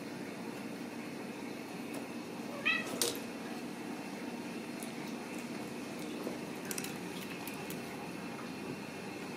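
A Ragdoll kitten gives one short, high-pitched mew about two and a half seconds in, followed at once by a sharp click, over a steady low hum.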